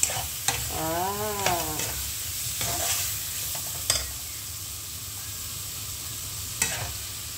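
Banana blossom and petai sizzling in a nonstick wok as a spatula stirs and turns them, with a few sharp knocks of the spatula against the pan; the loudest knock comes about four seconds in.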